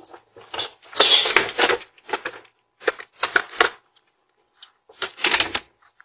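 A stroller being pulled and pushed over a concrete walkway, with footsteps: a handful of irregular clattering, scraping bursts, the longest about a second in.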